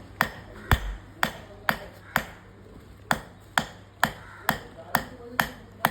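Hand hammer striking metal in a steady rhythm, about two blows a second, with a short pause about halfway through.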